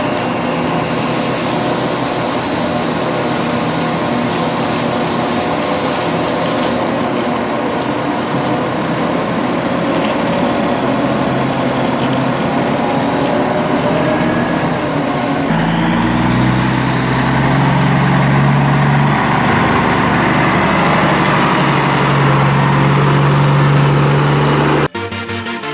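Truck engine sound from an RC concrete mixer truck, running steadily. About two-thirds of the way through it steps up to a louder, deeper note, and it cuts off abruptly near the end.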